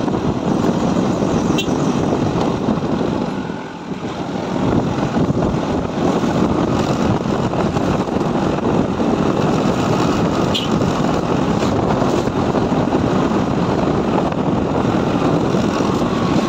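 Motorcycle riding along at road speed: steady, loud engine and rushing wind noise on the helmet-mounted microphone, easing briefly about four seconds in.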